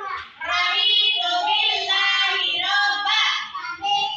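Young children singing a song together, with held, sustained notes.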